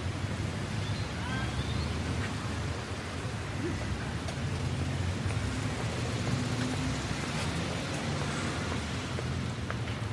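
City street ambience: a steady low traffic rumble under a wash of noise, with faint indistinct voices. About a second and a half in there is a brief high rising squeak.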